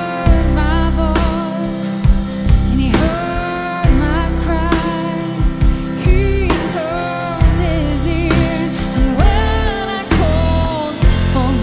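A woman singing a slow worship song, holding notes with vibrato, over her own keyboard accompaniment with a steady beat.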